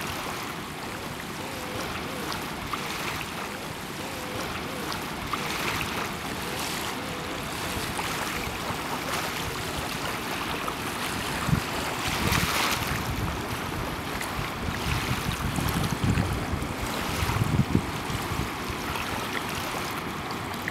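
Steady outdoor wind and water noise: wind buffeting the microphone and small waves washing on the river shore, with a few louder gusts about twelve and sixteen seconds in.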